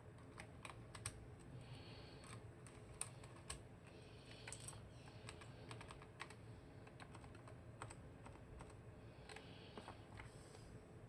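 Typing on a YK105 low-profile mechanical keyboard with linear red switches: soft, irregular keystrokes with a few louder clacks.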